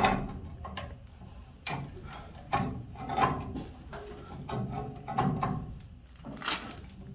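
Irregular knocks, clunks and rattles of metal tools and plumbing parts being handled, about a dozen separate strikes with short ringing after some of them.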